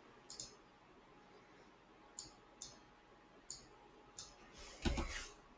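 Computer mouse clicking: about five sharp, light clicks spread out, then a louder, duller knock near the end.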